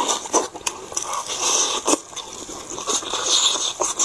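Close-miked eating: an irregular run of wet lip smacks, sucking and chewing clicks as tender braised chicken meat is bitten and pulled off the bone.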